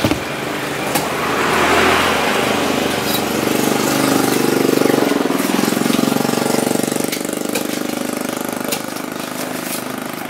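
A small engine running steadily, growing louder in the middle. A couple of sharp knocks near the start come from a heavy knife chopping on a wooden block.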